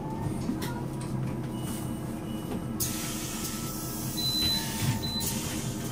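City bus diesel engine idling steadily. About three seconds in, a loud hiss of compressed air being released runs for about two and a half seconds and then stops.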